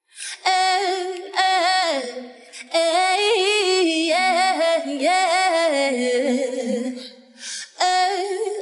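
A woman's voice singing a cappella with no accompaniment: long phrases of held and gliding notes, broken by a few short pauses.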